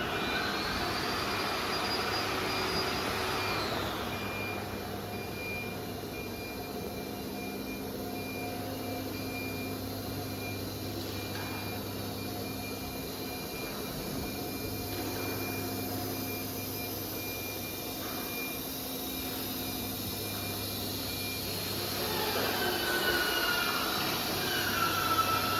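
CIMC2130-ATC CNC router running: a steady machine hum and whine. A higher whine drops away about four seconds in, and a louder wavering whine returns near the end.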